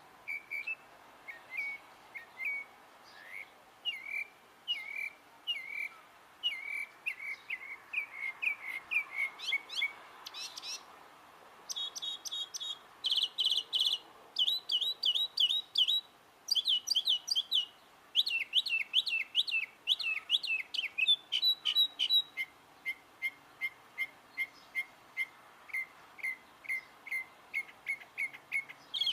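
A bird singing a long run of varied calls, each short whistled note or phrase repeated many times in quick succession before it switches to a different one.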